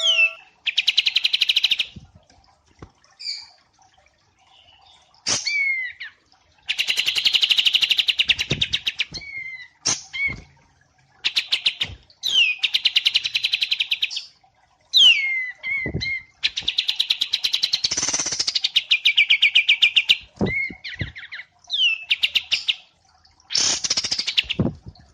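Small songbirds singing in a masteran recording, the wambi mini and kapas tembak: repeated fast rattling trills, each lasting one to a few seconds, alternating with short whistled notes that slide down in pitch.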